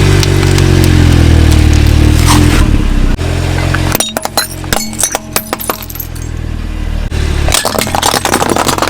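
A car engine running, then a quick run of sharp cracks and crunches from about four to seven seconds in as things are crushed, then the engine again.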